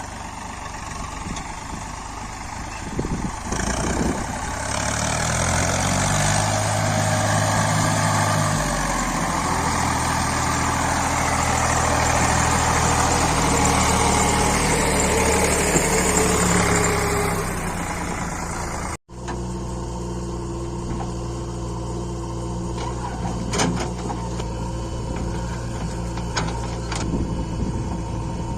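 Diesel engine of a JCB 3DX backhoe loader working, its pitch stepping up and the sound growing louder as it is revved for several seconds, then easing. After an abrupt cut it runs steadily, with a few sharp knocks of the machine.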